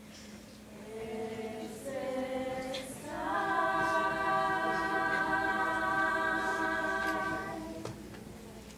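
A choir singing unaccompanied. Voices enter about a second in and build into a long held chord that fades away near the end.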